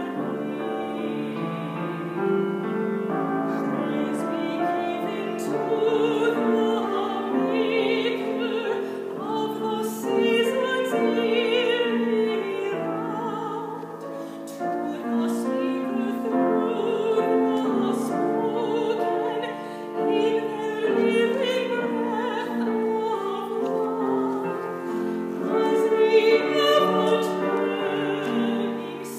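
A woman singing in a trained, operatic classical style, accompanied by a grand piano, with vibrato on her held notes.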